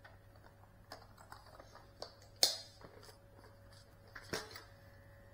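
A few light, sharp clicks and taps, the loudest about two and a half seconds in and another near four seconds, over a faint steady hum; no drone motors running.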